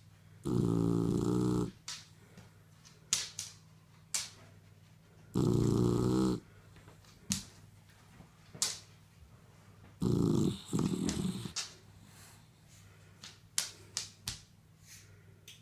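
Five-month-old Shar Pei puppy snoring: three loud snores about five seconds apart, the last broken in two, with sharp short clicks between them.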